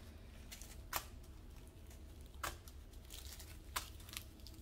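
Small plastic zip bags of diamond-painting drills set down one after another on a cloth: faint crinkles with about four sharp ticks, a second or so apart.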